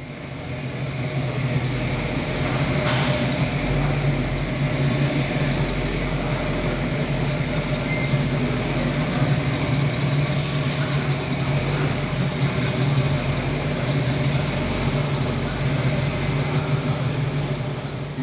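Car engine idling steadily with a low, even hum; it fades in at the start.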